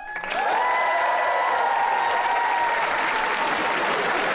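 Studio audience applauding steadily. A held high tone rides over the clapping for the first three seconds or so.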